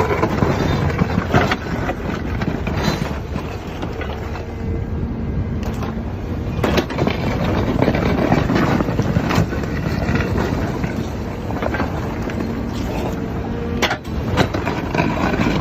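A heavy machine's engine running steadily under load, with a steady whine and scattered knocks and clanks.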